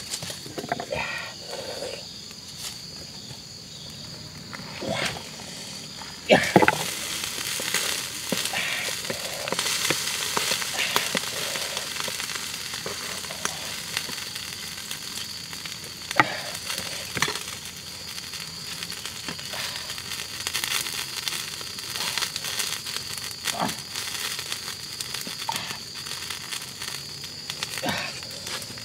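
Sizzling and crackling from a pot of hot liquid cooking on a wood fire. It starts suddenly and loudly about six seconds in, then carries on as a steady crackling hiss, with a few sharp knocks of a metal utensil against the pot.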